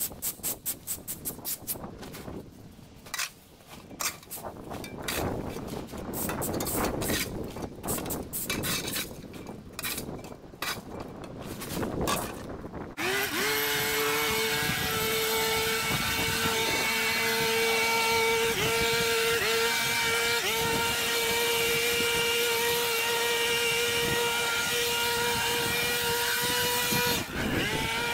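A rake scraping leaves across brick paving in quick, repeated strokes. About halfway through, a small petrol leaf blower comes in and runs steadily at full throttle with a rush of air, dipping briefly near the end.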